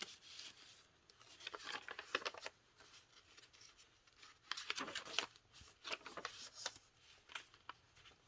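Paper pages and cards of a handmade junk journal rustling and crinkling as they are handled and turned, in several short spells with pauses between.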